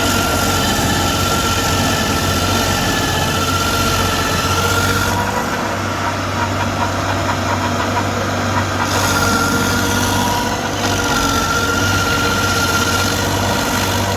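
Stump grinder's engine running steadily, with a high whine that wavers slightly in pitch.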